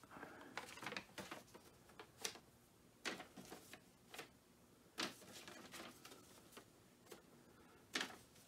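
Faint handling noise: a handful of soft, scattered clicks and taps, the sharpest about three, five and eight seconds in, with quiet between them.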